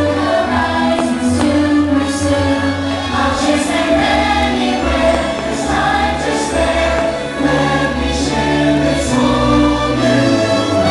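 Fireworks show soundtrack: a choir singing over orchestral music, with about six short firework bursts cutting through it.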